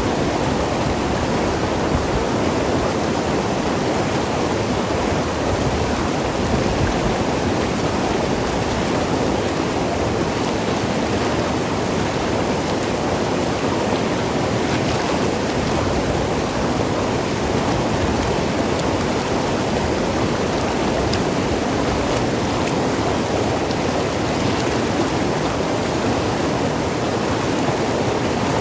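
Mountain river rushing and gurgling over rocks in a steady, dense flow.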